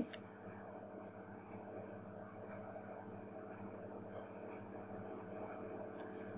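Steady, faint background hum with a thin high whine, and a single faint click about six seconds in.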